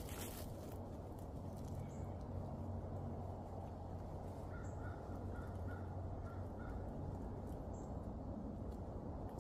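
Faint outdoor ambience: a steady low rumble, with a run of about six short, evenly spaced bird calls about halfway through.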